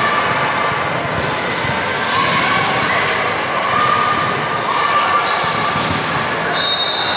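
Echoing din of a busy gymnasium: balls bouncing on the hardwood floor, with chatter in the background and a brief shrill note near the end.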